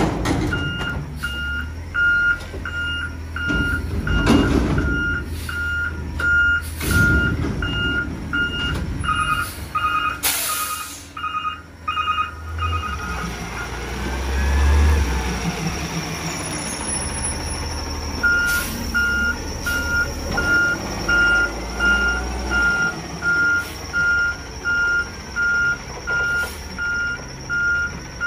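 Peterbilt 320 front-loader garbage truck's backup alarm beeping steadily, about two beeps a second, over the running engine. The beeping stops for a few seconds midway while the engine grows louder for a moment, then resumes; a short hiss of air comes about ten seconds in.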